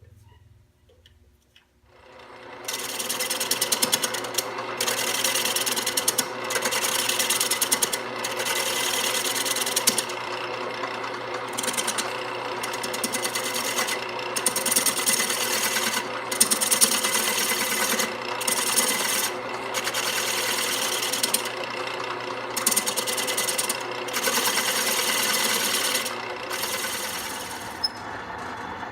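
Wood lathe starting up about two seconds in and running steadily, with a tool working the spinning walnut bowl in repeated passes, a hissing scrape that comes and goes every second or two.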